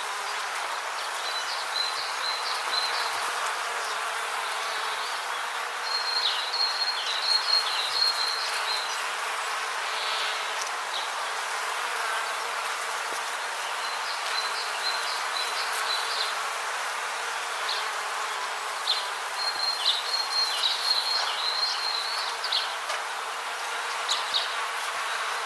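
Rainforest ambience: a steady, even hiss, with bouts of rapid, short, high chirps every few seconds.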